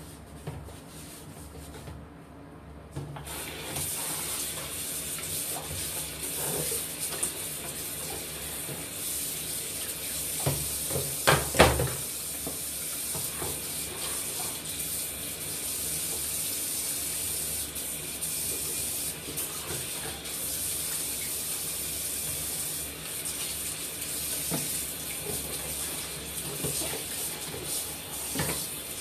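Tap running into a bathroom washbasin while the sink is washed, a steady rush of water starting about three seconds in. A few knocks near the middle stand out as the loudest sounds.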